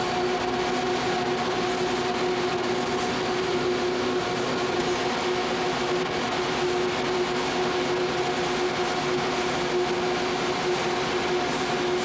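A rack of server computers running, their cooling fans giving a steady whirring rush with a steady pitched whine in it.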